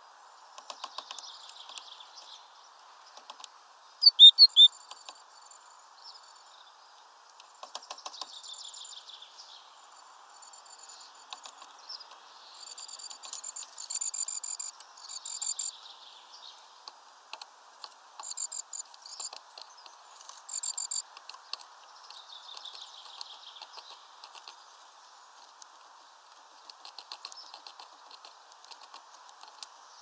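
Great tits at a feeder: scattered high chirping calls and many small sharp taps and clicks of birds pecking and hopping on the feeder, with a few loud knocks about four seconds in. The calls come thickest toward the middle.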